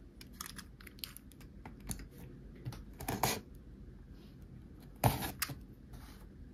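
Fingers tapping and scratching on a cardboard toy box, a quick run of light clicks and taps, with two louder scraping rubs about three and five seconds in.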